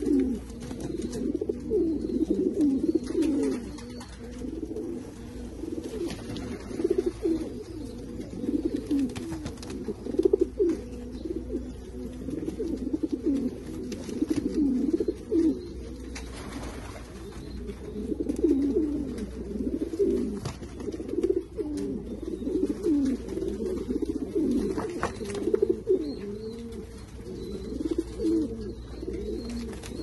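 Silver Modena pigeons cooing over and over in quick, overlapping low phrases, the display cooing of a male puffed up with its tail fanned as it courts another bird.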